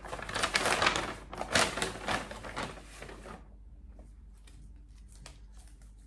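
Paper shopping bag rustling and crinkling as clothes are pulled out of it, a dense run of crackles that stops suddenly about three and a half seconds in, leaving only faint soft rustles.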